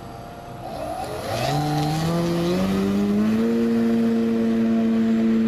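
Electric motor and propeller of an RC model airplane throttling up for takeoff: a hum that rises in pitch for about two seconds, starting about a second in, then holds steady at full power.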